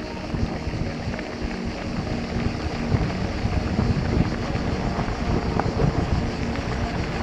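Wind buffeting the microphone and the rumble and rattle of a mountain bike rolling downhill over a loose gravel track, a rough low noise full of small knocks that grows a little louder as the bike gathers speed.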